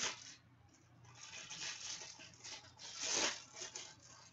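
Plastic wrapper of a trading-card box topper being torn open and rubbed by hand, in several rustling strokes, the loudest about three seconds in.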